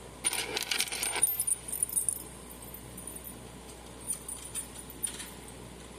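Small loose metal hardware jingling and rattling as a fire alarm pull station is handled: a busy burst of light metallic clinks for about two seconds, then a few scattered clicks a couple of seconds later.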